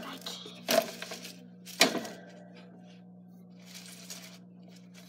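Three sharp metallic clinks and knocks from a wire gerbil cage being bumped by a hand reaching inside it, the loudest just under two seconds in, followed by soft rustling.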